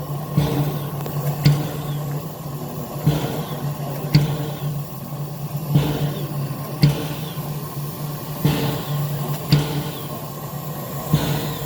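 Railway wheels clicking over rail joints in an even clickety-clack: pairs of clicks about a second apart, repeating every two to three seconds, over a steady low hum, as from inside a carriage moving at a constant speed.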